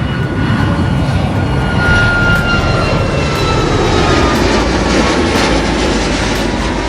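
Jet airliner passing low overhead. A loud engine rush with whining tones that slide down in pitch as it goes by, building over the first couple of seconds and easing near the end.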